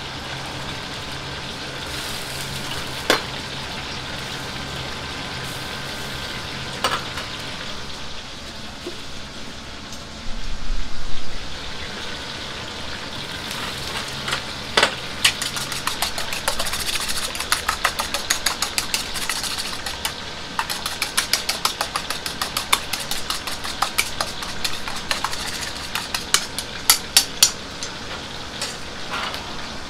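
Gas wok burner and sizzling food in a wok make a steady background, with a few metal clinks and a brief loud rumble about ten seconds in. From about halfway, chopsticks beat eggs in a stainless steel bowl in rapid clicks, several strikes a second.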